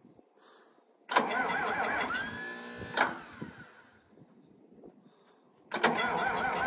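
John Deere 4640 tractor's starter cranking its cold six-cylinder diesel twice, each try about two seconds, with a warbling whine that rises and then holds steady; the engine does not fire. A failed cold start, which the owners wonder may mean the engine is locked up.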